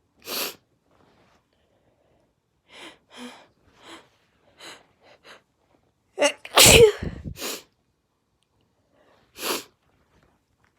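A person's sneeze build-up: a run of short, quick, breathy catches of breath, then one loud sneeze a little past halfway, with a shorter burst right after it and one more breath near the end.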